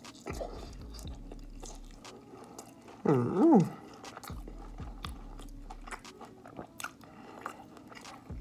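A person chewing and biting KFC food close to the microphone, with small crunches and wet mouth clicks. About three seconds in comes a short, loud pitched vocal sound that rises and then falls, like an 'mmm'.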